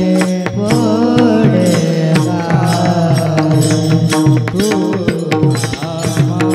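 Male voices singing a Varkari kirtan melody (chal) in raag Bhairavi, with small brass hand cymbals (taal) struck in a steady rhythm over a steady held drone.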